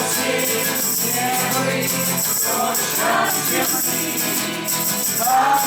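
A group of voices singing together to music, with a tambourine jingling steadily.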